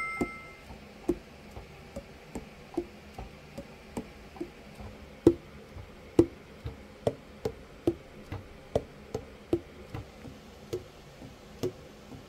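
Yamaha YTS-62 tenor saxophone keys being pressed and released, their pads closing onto the tone holes with short soft knocks, about two to three a second. This is a leak test after an overhaul, with every key closing with a tight seal. A short two-tone chime rings at the very start.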